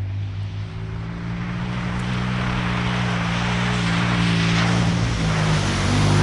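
Pickup truck engine running under steady load as the truck drives through snow, growing gradually louder with a rising rush of noise, its pitch dipping briefly near the end.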